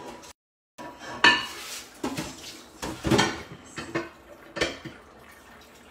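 Metal pots, pans and cooking utensils clinking and clattering on a stovetop: about five separate knocks with a short ring, the loudest about a second in and again around three seconds. The sound drops out completely for half a second near the start, a glitch in the live connection.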